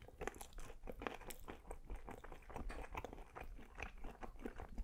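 A person biting into and chewing a piece of falafel waffle topped with lamb and feta: a quiet, irregular run of small crackles and wet mouth clicks.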